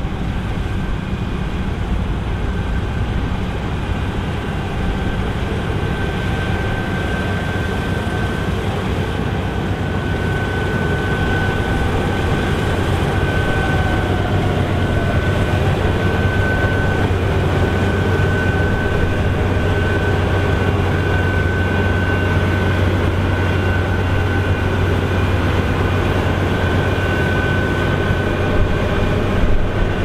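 Claas Lexion 8900 combine harvester running under load while harvesting barley: a steady deep drone of engine and threshing machinery with a thin, steady high whine over it, growing slightly louder as the machine comes closer.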